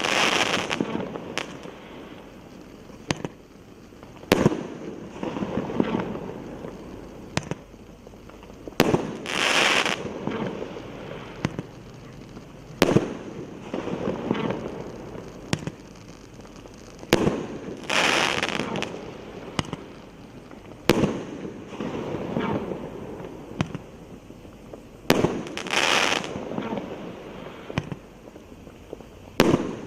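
An 8-shot, 1.2-inch Roman candle firing. Each shot is a sharp pop every few seconds, followed by a second or two of hissing and crackling from the stars and crackle effects.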